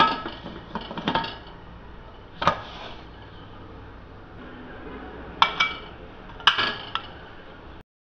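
Aluminium pressure cooker lid being fitted and closed on the pot: a series of sharp metallic clinks and clanks, about seven in all, some in quick pairs.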